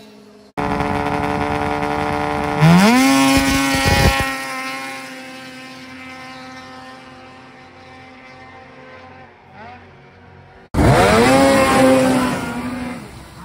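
Racing snowmobile engines at full throttle. A sled runs steadily, then about two and a half seconds in launches with a fast rising wail that holds at high revs and slowly fades as it climbs away up the hill. After a cut near the end, a second launch gives the same rising wail.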